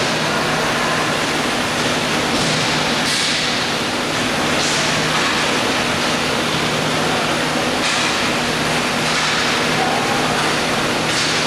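Steady rushing noise over a low hum, the sound of an indoor roller hockey rink, with a few brief high hissing swishes.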